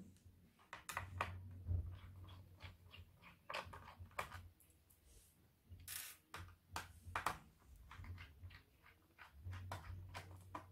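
Faint, scattered clicks and scrapes of a small cross-head screwdriver and fingers working at the screws of a laptop's plastic bottom cover.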